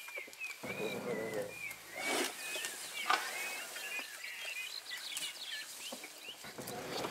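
Birds chirping and whistling throughout, with soft rustling and low scuffing from a young elephant rolling and pushing herself up in the mud on a termite mound. The loudest sound is a short rush of noise about two seconds in.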